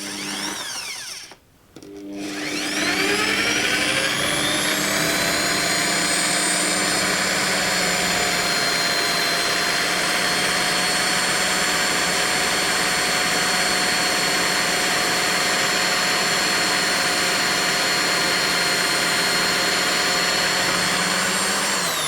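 Electric drill boring a hole into the body of a squid jig. It runs in a short burst, stops briefly, then spins up with a rising whine and runs steadily for about twenty seconds.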